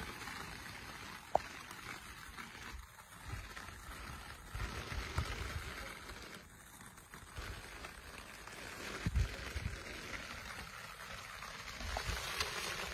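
Steady rain falling, an even hiss throughout, with occasional low rumbles on the microphone and a single sharp click just over a second in.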